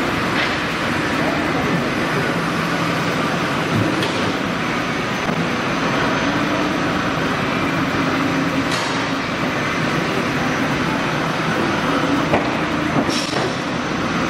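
Steady machinery noise from an automatic-loading CNC nesting router running, broken by four brief sharp clicks.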